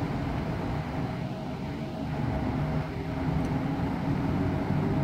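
EP09 electric locomotive moving slowly while shunting, a steady low running hum with a faint steady higher tone over it.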